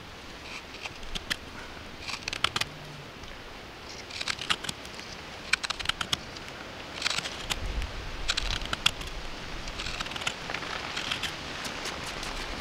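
Hook knife scooping wood from the bowl of a carved wooden ladle: bunches of short, quick scraping cuts every second or two over a steady hiss. A low rumble comes in about two-thirds of the way through.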